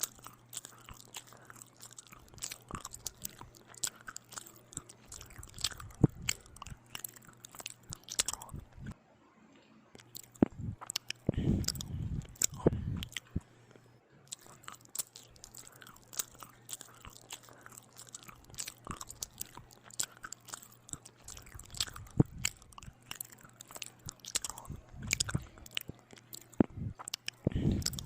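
Close-miked eating: bites and chewing of bread with ham and tomato, with crisp crunches and many small wet mouth clicks. A brief pause about a third of the way through, and heavier chewing in the middle and near the end.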